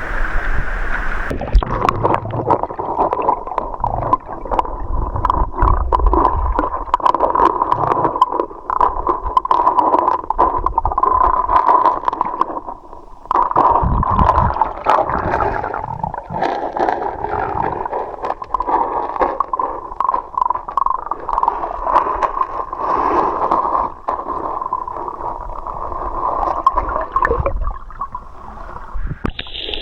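River water gurgling and sloshing around a camera microphone that is in or under the water, muffled, with many small knocks and clicks.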